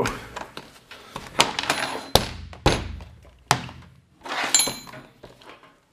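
Several sharp plastic and metal clacks and knocks from handling an old desk fan: prising at its plastic motor housing and shifting the fan and its wire guard. A scraping rustle with a faint squeak comes near the end.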